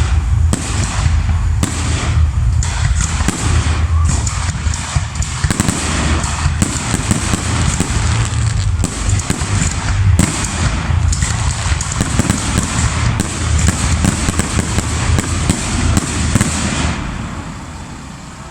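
Fireworks display: a dense, unbroken barrage of bangs and crackles, many per second, over deep booms. It dies away about a second before the end.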